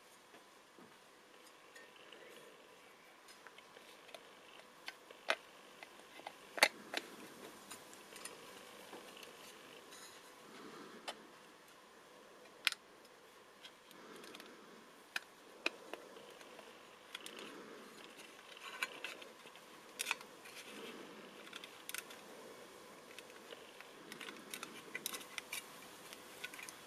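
Hands handling the plastic body and parts of a 1:24 scale model Audi R8: scattered sharp clicks and taps of plastic with soft rubbing, as the clear windscreen piece is fitted into the body shell.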